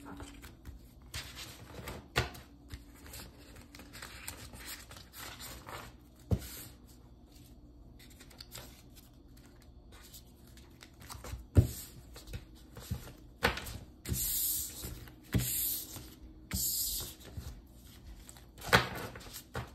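Sticker sheets and clear plastic packaging being gathered up and stacked by hand on a table: rustling and sliding with scattered light taps. In the second half there are louder rustles, several of them about a second apart.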